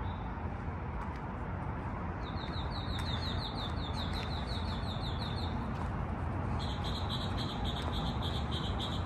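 A songbird's trill: two runs of quick, evenly repeated chirps, about four a second and each lasting two to three seconds, over a steady low rumble.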